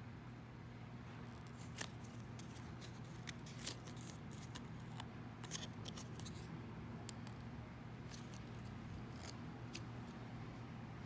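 Fingers handling and flipping open a stuffed toy's folded cardboard hang tag: scattered faint crisp clicks and paper rustles over a low steady hum.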